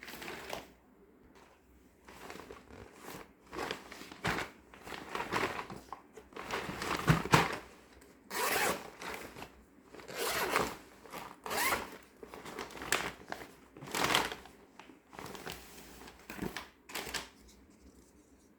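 Toy packaging being torn open and handled: a series of irregular crinkling, ripping bursts with short pauses between.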